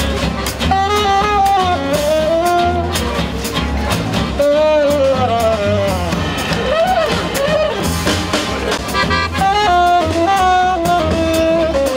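Small acoustic swing-jazz band playing: a saxophone carries a melody full of bends and slides over double bass, accordion, acoustic guitar and a drum kit keeping a steady beat.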